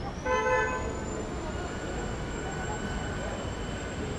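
A vehicle horn gives one short toot, about half a second long, a third of a second in, over a steady rumble of road traffic. A thin, high-pitched whine glides up and then holds steady.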